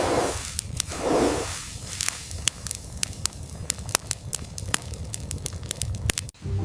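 Rapid, irregular crackling and sharp snaps over a low rumble, with two short hissing swells in the first second and a half.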